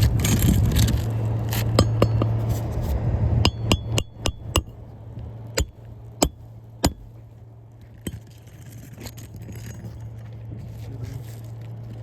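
Roofing snake tool driving a roofing nail under a shingle tab: scraping at first, then a run of sharp metal clinks, five quick ones from about three and a half seconds in, followed by a few slower single strikes.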